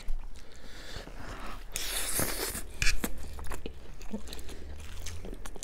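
Close-up eating sounds: chewing and biting into a mouthful of food, with short wet bursts and a few sharp clicks.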